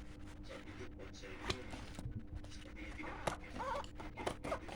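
Handling of packaging in a small room: scattered clicks, taps and scratchy rustles at an irregular pace, over a faint steady hum.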